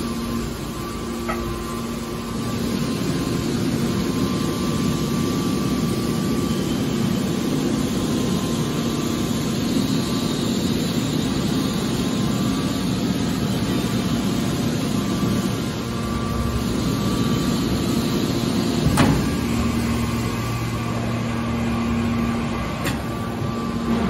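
Hydraulic power unit of a horizontal scrap metal baler running with a steady hum, with a single sharp knock about nineteen seconds in.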